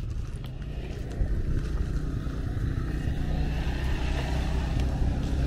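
ATV (quad bike) engine running steadily while riding, a constant low rumble.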